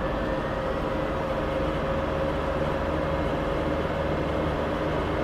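Aircraft engine whistling steadily at one pitch over a constant rumble.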